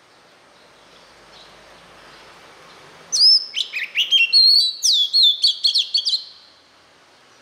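Oriental magpie-robin singing: a run of loud, clear whistled notes that slide up and down, starting about three seconds in and lasting about three seconds.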